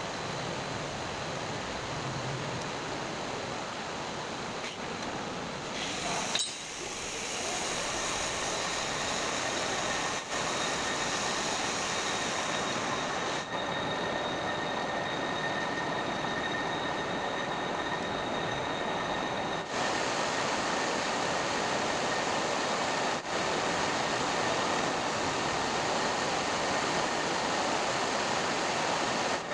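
Metal lathe running, a steady hiss of machining with a thin high whine, briefly dropping out several times.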